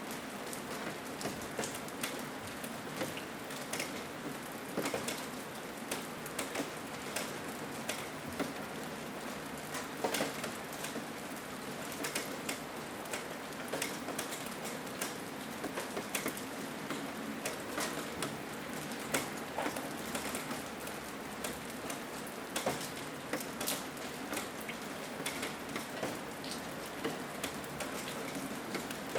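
Steady rain falling, an even hiss with many individual drops striking sharply at irregular moments.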